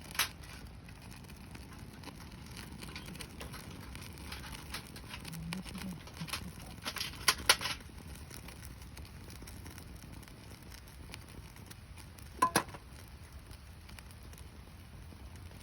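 Wood campfire burning damp, rain-soaked firewood: a steady low crackle broken by sharp pops of the burning wood, one at the start, a loud pair about halfway through and another a few seconds later.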